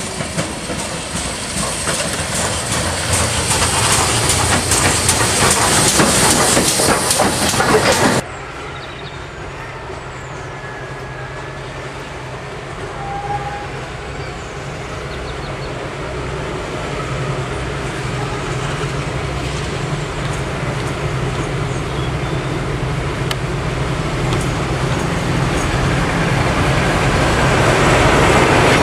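GWR Manor class 4-6-0 steam locomotive approaching and passing close, its noise building for about eight seconds before breaking off abruptly. Then a Class 52 Western diesel-hydraulic locomotive's engines run with a steady low drone, growing louder as it draws slowly past near the end.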